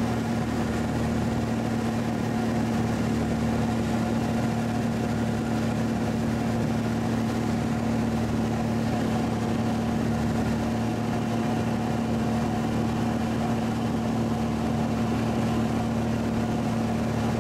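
Light airplane's engine and propeller running steadily in flight, heard from inside the cabin: an even hum with one strong steady tone over a rushing air noise.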